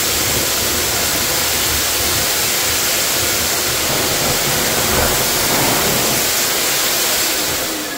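High-velocity pet grooming dryer blowing a loud, steady rush of air through its hose as it dries a cat's coat, dying away near the end.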